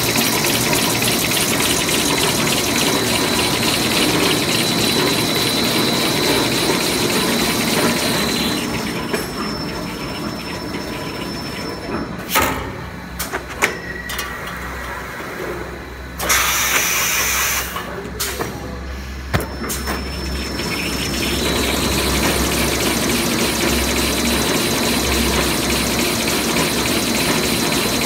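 Toilet-paper rewinding machine running steadily with a high whine over its mechanical clatter. Around the middle it quietens, with the whine gone, several sharp knocks and a short loud hiss, while a finished paper log sits on the rewinder. Then it runs steadily again.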